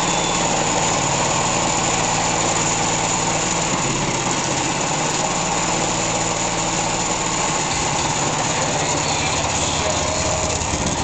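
Small single-cylinder go-kart engine running steadily, its note shifting about four seconds in and again near eight seconds.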